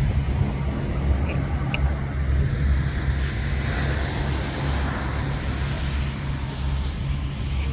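A motor vehicle's engine runs with a steady low hum. A broad hiss swells and fades between about three and six seconds in.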